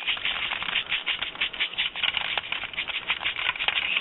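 Bird seed being shaken in a sifter, a dense rapid rattle of many small seeds hitting the mesh as the small seeds are sifted out from the larger ones.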